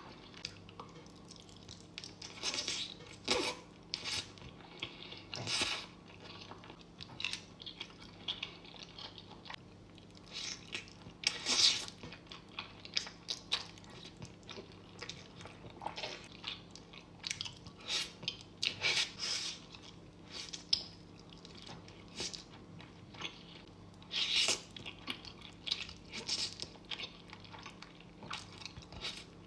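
A person chewing and crunching food close to the microphone, in irregular bites and chews with some louder crunches, over a faint steady low hum.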